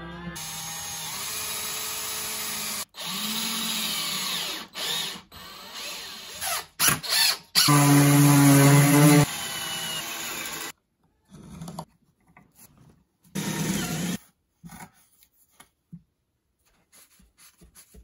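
A power drill with a twist bit boring into oak, running in several bursts that spin up and wind down, loudest and steadiest at full speed about halfway through. After that, only short, quieter scuffing and handling sounds.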